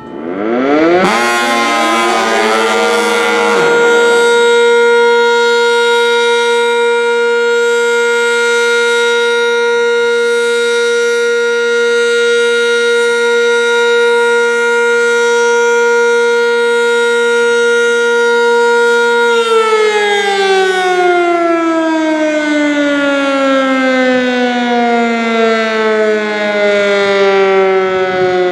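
Sentry 10V electromechanical fire siren sounding its noon test: it winds up in pitch over about two seconds, holds one steady tone for about seventeen seconds, then winds down with a falling pitch.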